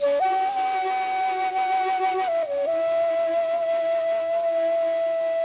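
Background music: a slow flute-like melody of long held notes that comes in suddenly, steps up to a higher note, then about halfway through dips briefly and settles on a slightly lower held note.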